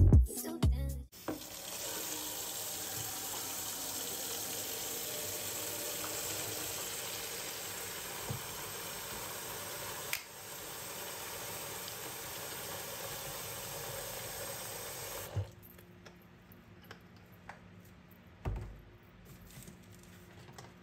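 Tap water pouring steadily into a plastic bucket as it fills. The flow stops suddenly about fifteen seconds in, followed by a few faint clicks and a single thud.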